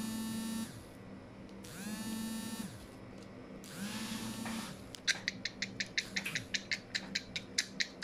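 A small electric motor whirs up, runs for about a second and winds down, three times. From about five seconds in, a quick run of sharp clicks follows, roughly three a second.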